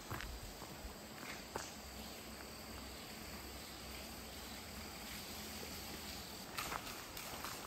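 Outdoor ambience with insects chirring, a thin steady high tone, over a soft hiss. A few faint taps, most of them near the end.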